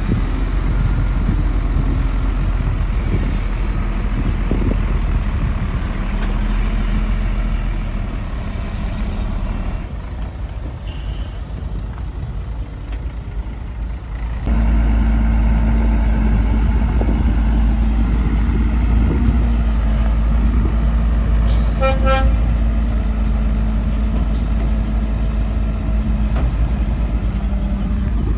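Heavy diesel earthmoving machinery running steadily, its engine getting louder about halfway through with a steady hum. A short horn toot sounds about three quarters of the way in.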